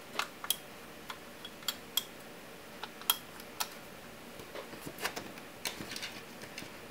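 Irregular sharp metallic clicks and ticks from a small screwdriver working the cooler-mount screws on the back of a graphics card, with small screws being handled. There are about a dozen clicks, some with a brief high ring, bunched more closely over the last two seconds.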